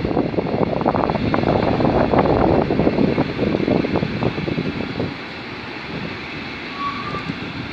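Freight train of container flat wagons loaded with tank containers rolling past at close range, its wheels clattering and rumbling over the rails. The sound eases off after about five seconds as the passing wagons get quieter.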